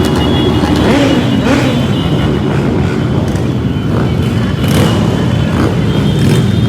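Many motorcycle engines running together as a mass of bikes rides past, with a few revs rising and falling in the first couple of seconds.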